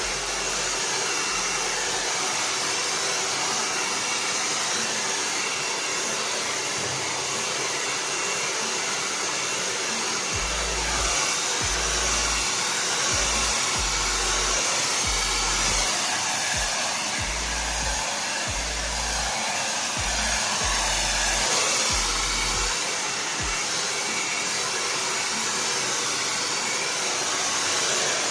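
Handheld blow dryer running steadily, blowing hot air over natural hair, with irregular low rumbles through the middle stretch.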